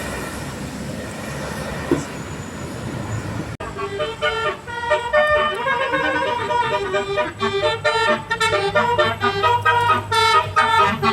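Road traffic noise, then after a sudden break a bus's telolet basuri musical air horn plays a quick tune of many shifting notes.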